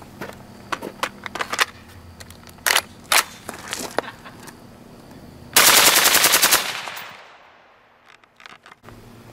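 Suppressed Steyr AUG in 5.56 with an AAC SDN-6 suppressor firing a full-auto burst of about eleven rounds in just under a second, about 630 rounds a minute, with the suppressor gas plug fitted. The burst comes a little past the middle and dies away in an echo, after a few sharp clicks.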